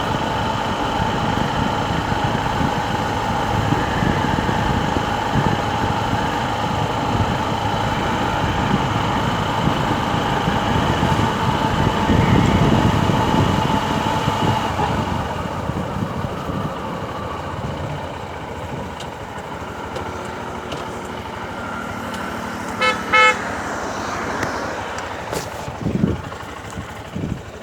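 Honda Livo 110cc single-cylinder motorcycle running on the road, its steady engine and road noise easing off about halfway through. Near the end a horn sounds in a short pulsing toot, followed by a few thumps.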